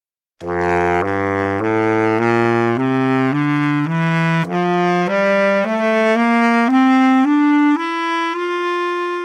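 Saxophone playing a slow rising scale, one note at a time, climbing step by step from the low end of its range. It starts abruptly about half a second in.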